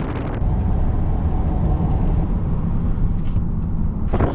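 Car driving, a steady low engine and road rumble.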